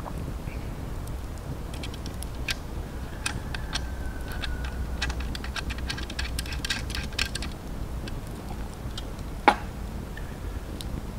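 Wood campfire crackling, with quick irregular snaps clustering in the middle and one much louder pop near the end.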